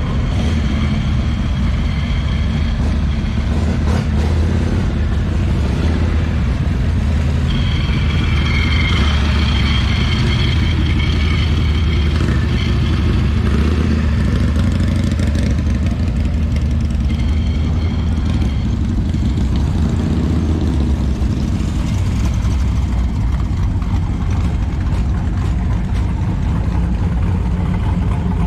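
Hot rod and rat rod engines running at low speed as cars roll in, a loud, steady, deep exhaust note.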